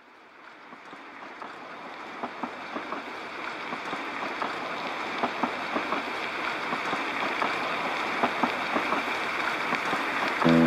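Ambient background sound fading in and growing louder: a steady hiss-like noise scattered with many small irregular clicks and taps. Music with held chords starts right at the end.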